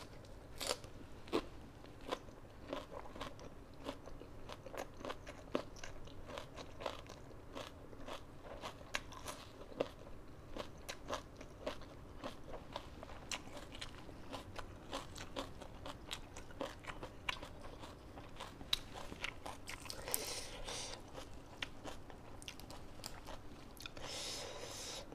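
Crunching and chewing of raw vegetables: many short, crisp bites and chews in steady succession. Near the end there is a brief rustle as leafy vegetables and long beans are handled.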